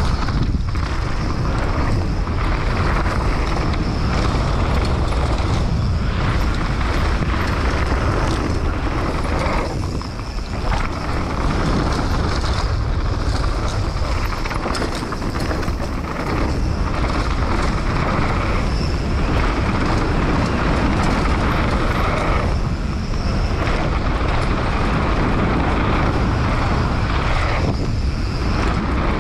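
Wind rushing over a helmet-mounted camera microphone and tyre noise on a dirt trail as a hardtail mountain bike descends at speed, a loud, steady rush with a few brief lulls.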